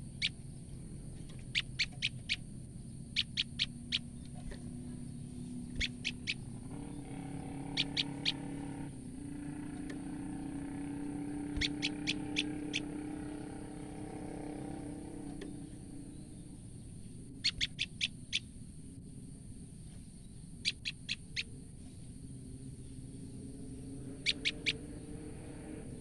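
Female common tailorbird giving sharp alarm calls in quick bursts of three to five notes every few seconds; these are its fear calls. A low hum drones in the background through the middle.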